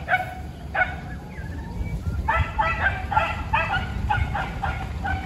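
Civet-hunting dogs barking: two single barks at the start, then from about two seconds in a fast run of barks, about three a second.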